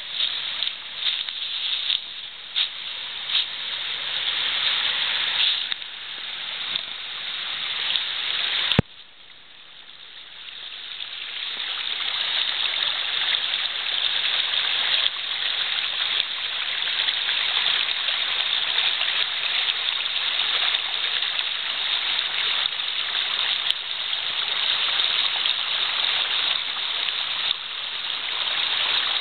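Waterfall water rushing and splashing steadily. There is a sharp click about nine seconds in, after which the rush drops away and swells back up over a few seconds.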